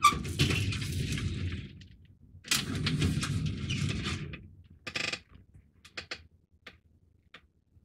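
Two bursts of handling noise, knocking and rustling, each under two seconds long, followed by a few light clicks.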